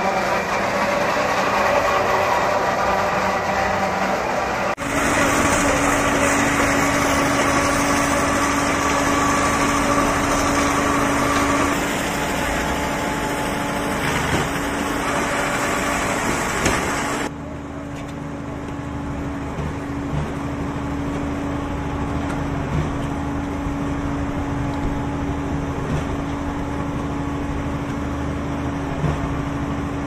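Concrete mixing pump machinery running with a steady drone and a constant hum. The sound changes abruptly about five seconds in and turns quieter about seventeen seconds in.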